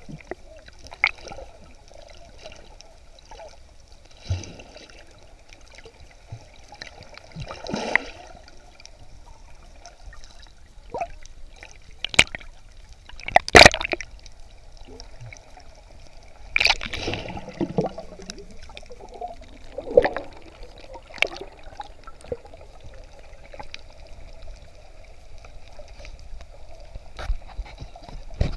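Underwater sound picked up by a camera in its waterproof housing: a steady muffled water hiss, broken by scattered sharp clicks and knocks, the loudest a little under halfway through.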